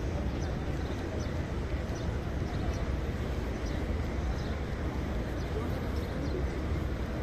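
Indistinct murmur of a large crowd of people talking in an open courtyard over a steady low rumble, with faint short high chirps now and then.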